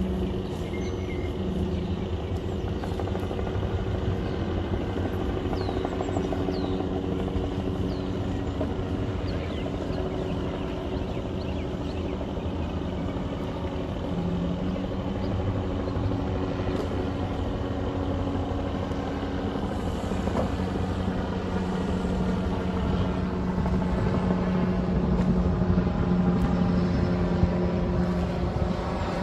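A vehicle running steadily, with a constant drone of engine and road noise that grows slightly louder near the end.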